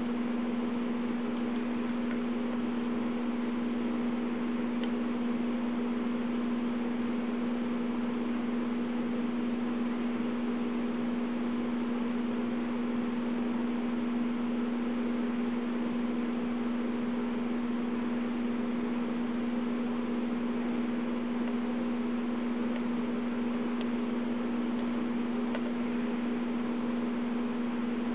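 A steady hum with an even hiss beneath it, one unchanging tone throughout.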